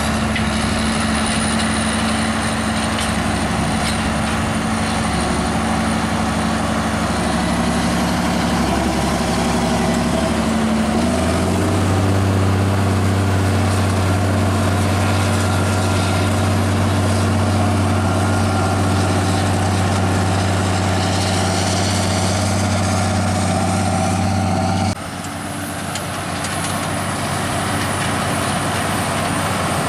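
Straight-piped diesel engine of a Claas Axion tractor running steadily under load while pulling a tillage implement. Its drone deepens and grows stronger partway through as the tractor comes close. Near the end there is a sudden cut to a weaker engine sound from a tractor further off.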